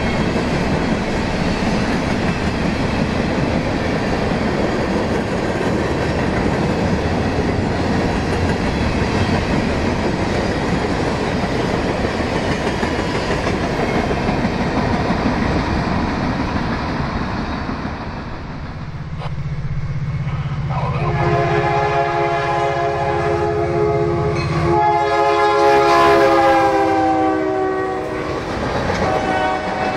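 Freight cars rolling past with steady wheel rumble and clickety-clack over the rail joints. About two-thirds in, a locomotive's multi-tone air horn sounds in two long blasts over a low engine drone, ending shortly before the end, after which the wheel noise goes on.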